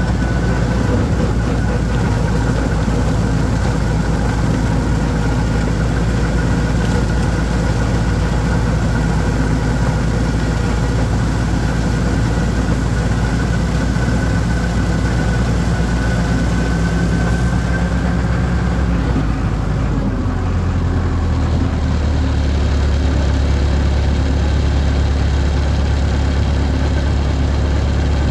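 Holder compact tractor's diesel engine running steadily. About two-thirds of the way through, a thin whine fades out and the engine note changes to a stronger low hum.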